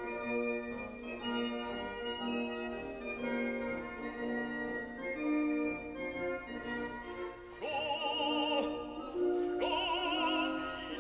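Classical background music: sustained organ-like keyboard chords, joined about three-quarters of the way through by an operatic voice singing with wide vibrato.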